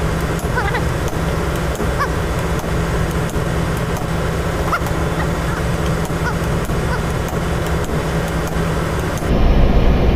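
Steady low machinery hum with light taps of a soft-faced mallet on a fuel injector body clamped in a steel vise. About nine seconds in, the hum turns louder and deeper.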